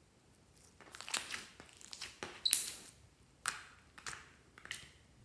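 Black glitter slime squeezed and folded by hand: a run of crackling squishes starting about a second in, the loudest about halfway through.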